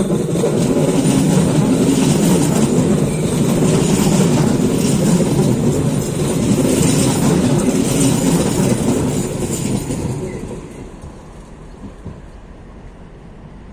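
Madrid Metro train passing close by on surface track: loud running and wheel-on-rail noise for about ten seconds, then fading as it moves away.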